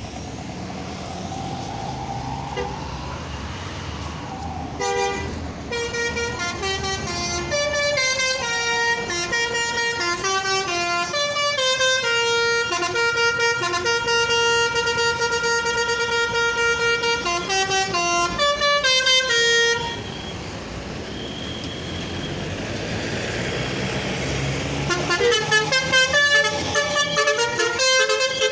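Basuri V3 multi-tone "telolet" bus horn playing a melody of stepped notes, with a long held note in the middle. It starts about five seconds in, stops about twenty seconds in, and starts again near the end. Bus engine and road noise lie under and between the horn runs.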